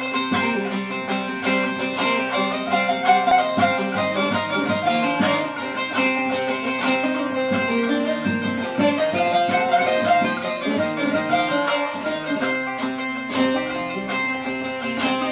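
Short-neck bağlama (saz) played with a plectrum: quick strummed and picked notes carrying a running Turkish folk melody.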